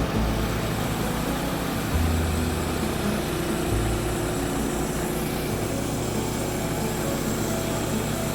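Gasoline engine of a Woodland Mills HM126 portable bandsaw mill running steadily, its low drone shifting in pitch about two seconds in and again a little later.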